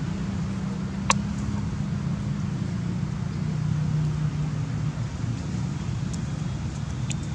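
Steady low drone of a running motor, with one sharp click about a second in and a few faint ticks near the end.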